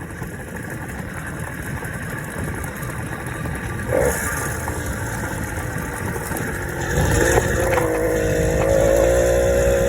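The small engine of a motorized bicycle running and growing louder. From about seven seconds in a strong, steady engine note comes in and rises slightly, as the engine is throttled up.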